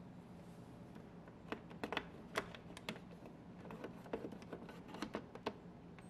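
About a dozen light, irregular clicks and taps of a wooden toothpick picking at the gap around a plastic button on a Bosch dishwasher's control panel, clearing the food build-up that makes the button stick.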